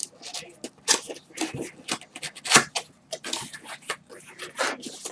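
Cardboard shipping box being handled and opened by hand: an irregular run of sharp taps, scrapes and rustles, loudest about two and a half seconds in.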